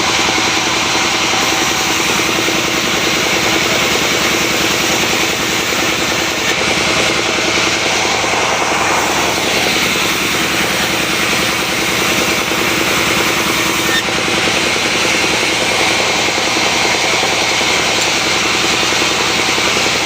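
Woodworking power tool running continuously, a steady loud whir with a fast even pulse that holds without a break.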